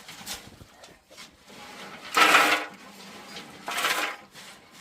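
Two short, rough scrapes about a second and a half apart, the first the louder.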